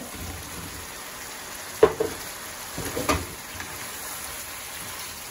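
Chicken pieces sizzling steadily as they fry in a wok, while tomato wedges are tipped in and stirred with a wooden spatula. A sharp knock about two seconds in, the loudest sound, and a short clatter about a second later mark the tomatoes going in and the pan being stirred.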